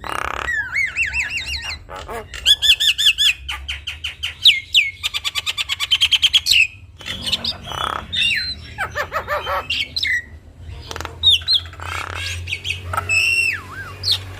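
Javan myna (jalak kebo) singing a long, varied song: sliding whistled notes, a fast run of evenly repeated notes in the middle, and several harsh notes in between.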